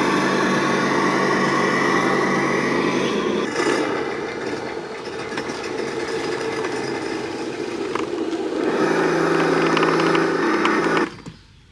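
Homemade 1/6-scale RC truck's motors running with a steady mechanical hum that fades into a noisier whirr about three seconds in, returns a few seconds later, and cuts off suddenly about a second before the end.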